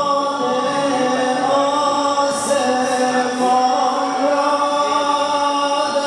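Men chanting a Shia noha, a Muharram mourning lament, over a microphone, in long held notes that step slowly up and down in pitch.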